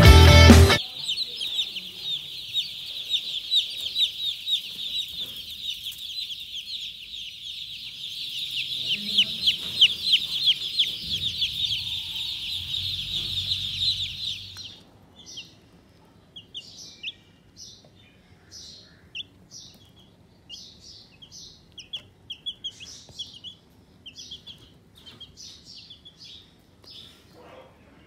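Broiler chicks peeping: first a dense, continuous high-pitched chorus of many chicks cheeping together, then, about halfway through, an abrupt change to just a few chicks giving scattered single peeps.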